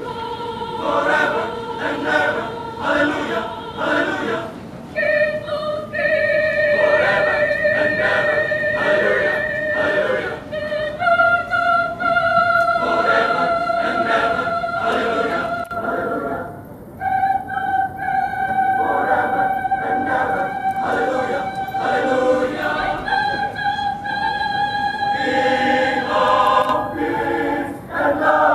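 Choir singing: a series of long held notes, each lasting a few seconds and moving to a new pitch, over pulsing chords.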